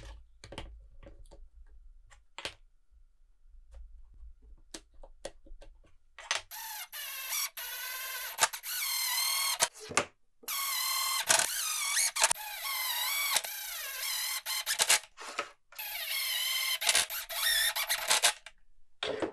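Cordless Craftsman impact driver driving screws into a pine 1x2 frame through countersunk pilot holes, in three long runs, its motor whine wavering in pitch as the screws bite. Light clicks of clamps and wood being handled come first.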